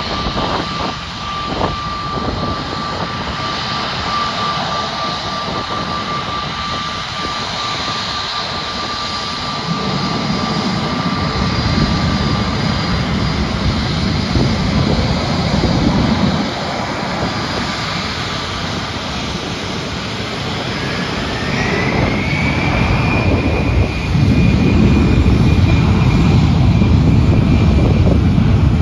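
Jet engines of a Jetstar Airbus A321 whining steadily as it taxis and lines up on the runway. About three-quarters of the way through, the engines spool up with a rising whine and a louder, steady rumble as the takeoff power comes on.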